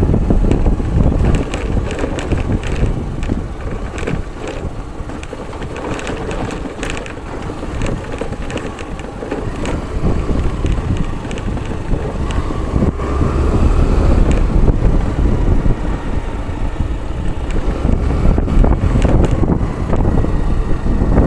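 Motorcycle riding over a rough, stony gravel road: a heavy rumble of wind on the microphone, with frequent clicks and crunches of loose stones under the tyres.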